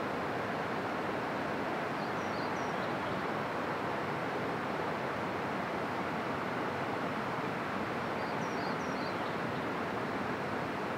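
Steady outdoor rushing noise with no rhythm or change, and a small bird chirping briefly twice, about two seconds in and again near the end.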